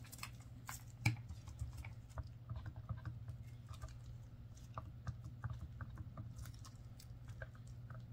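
Stir stick ticking and scraping against the walls of a cut-off plastic water bottle while mixing epoxy resin, a run of small irregular clicks, the sharpest about a second in, over a low steady hum.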